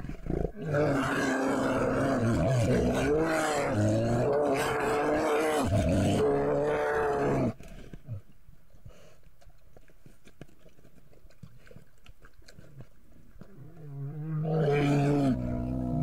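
Two grizzly bears meeting and vocalizing at each other: a loud, rough bout of calls wavering in pitch that lasts about seven seconds, then after a lull a second, shorter bout near the end.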